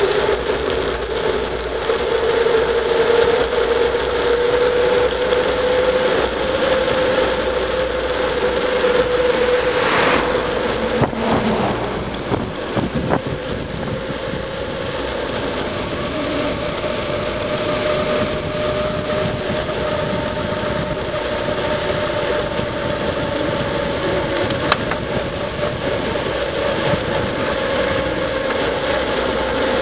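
Bicycle descending a paved road at speed: steady tyre and wind rush with a single hum whose pitch drifts slowly up and down as the speed changes, and a few light clicks about ten to thirteen seconds in.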